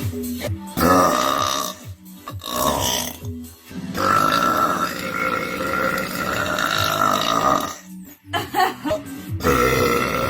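A woman belching loudly, several times: two short belches, then one long drawn-out belch lasting nearly four seconds, then a few quick short ones and another starting near the end.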